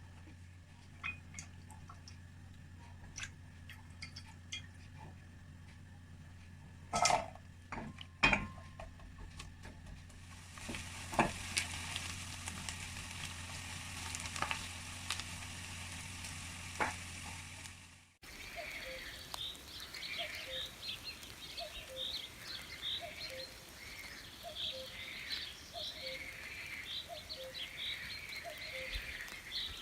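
A few sharp clinks of utensils over a steady hum, then food frying in hot oil with a steady sizzle for several seconds. After an abrupt cut, birds chirp.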